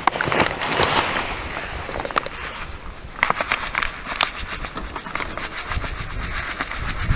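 Foil groundbait bag crinkling as dry crucian-carp groundbait is shaken out of it onto the ice, with a run of small crackles and clicks as the grains pour and land.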